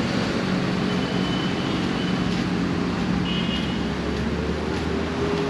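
Steady city road traffic: cars and other motor vehicles passing on the road alongside, with a low engine drone that comes up about four seconds in.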